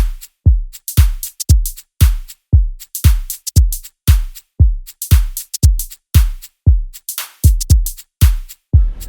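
Electronic background music with a steady drum-machine beat: a deep kick drum about twice a second, with crisp high hits between the kicks.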